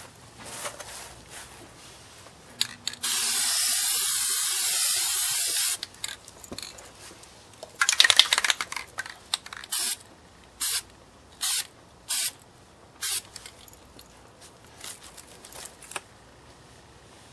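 Aerosol spray-paint can spraying: one long steady hiss for about three seconds, then a rougher burst and five short spurts about a second apart.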